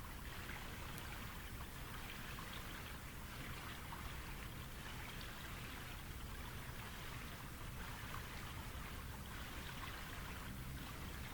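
Faint, steady water sound: a continuous trickle and patter of water with fine droplet flecks.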